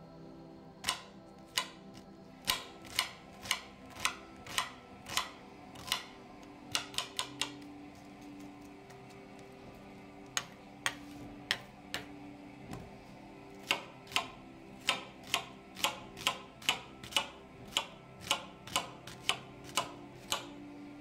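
Kitchen knife chopping an onion on a cutting board: sharp knocks of the blade striking the board, in irregular runs of one to two a second, with a quick flurry about seven seconds in and a couple of short pauses.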